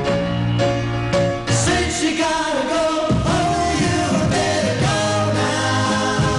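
Music with singing: a 1960s pop record, band accompaniment with a lead voice coming in about a second and a half in.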